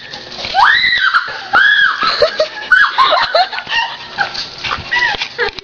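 A dog barking over and over, mixed with a woman's high shrieks and laughter as the dog chases her.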